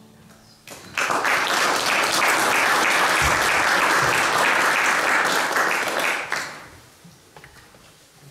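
A congregation applauding at the end of a song: clapping starts suddenly about a second in, holds steady for about five seconds, then dies away.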